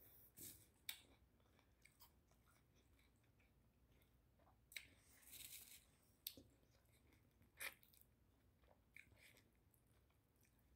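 Faint eating sounds: chewing, with scattered short crisp crunches and bites.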